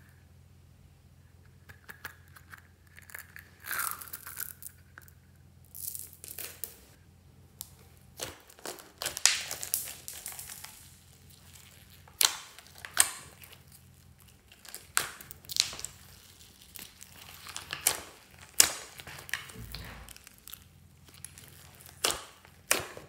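Glossy slime being folded and kneaded by hand over small foam beads and other add-ins in a glass dish, giving irregular sticky crackles and pops.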